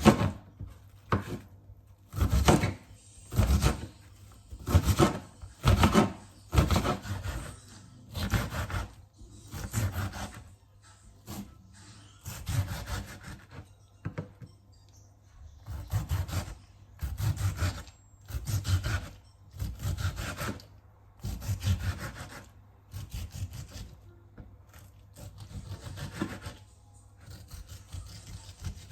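A vegetable rubbed down a hand grater in rasping strokes, roughly one a second, in runs broken by short pauses.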